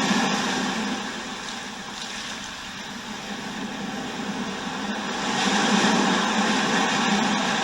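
Recorded ocean-surf nature sound played through a Verilux VA04 alarm clock's built-in speaker: a hiss of waves that fades down about a second in and swells back up about five seconds in.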